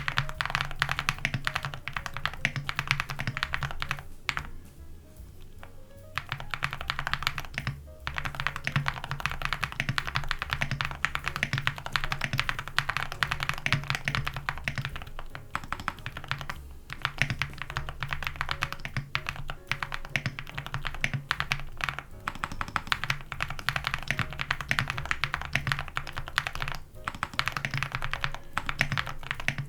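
Fast, continuous typing on a mechanical keyboard with Gateron Moon Landing linear switches, fully foamed, with an aluminium plate and dye-sub PBT keycaps: dense clacks, pausing for about two seconds near the start. Background music plays under the typing.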